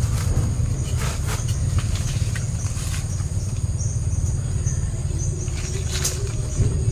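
A steady low rumble under a few short rustles and clicks as the fruit bag on a jackfruit hanging from the trunk is handled, with a faint high steady whine above.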